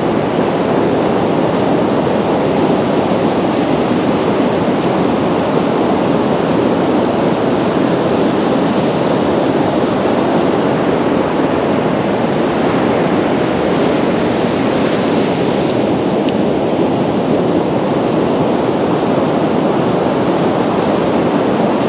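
Surf breaking along a sandy sea beach, mixed with wind on the microphone: a steady rushing noise, with a brief brighter hiss about fifteen seconds in.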